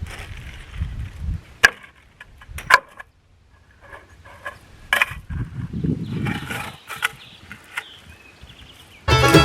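Scattered sharp knocks and clatter of wood-framing work on lumber, with stretches of low rumble in between. Fiddle-and-banjo bluegrass music comes in suddenly near the end.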